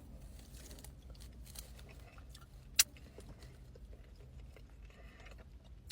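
A man quietly chewing a bite of fried barbecue hot link over a steady low hum, with one sharp click about three seconds in.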